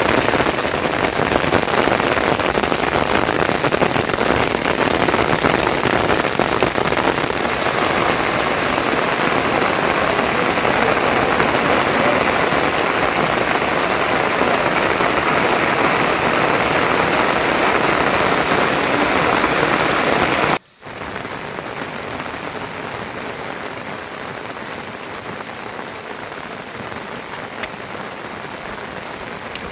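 Steady falling rain hitting a surface, a dense even hiss of drops. About two-thirds of the way through it cuts out for a moment and comes back quieter.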